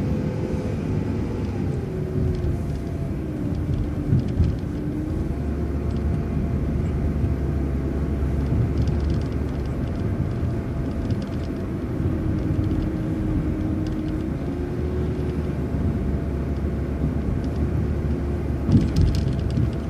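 City transit bus running along the road: a steady engine and drivetrain rumble with tyre noise, heavier after about five seconds, and a faint whine that shifts pitch a little as the bus changes speed.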